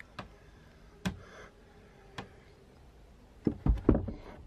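Heavy 12 V battery being lowered into a wooden battery box: a few light knocks early on, then a cluster of heavier thuds about three and a half seconds in as it is set down and shifted into place.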